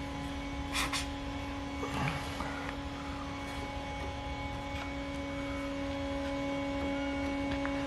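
A steady electrical hum with a couple of brief, faint hisses, the first about a second in.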